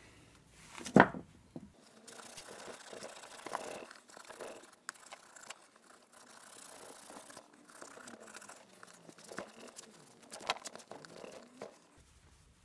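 Wire wool rubbed back and forth over the rust-spotted chrome seat post of a Raleigh Chopper, a scratchy rasping that goes on until near the end. A sharp knock about a second in is the loudest sound.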